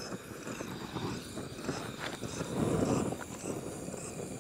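Campfire kindling crackling as it catches, lit with a butane torch, with a few sharp snaps and a louder dull rustle around the middle.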